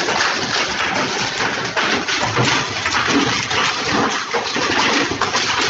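Hailstones pelting down heavily: a steady, dense clatter of countless small impacts.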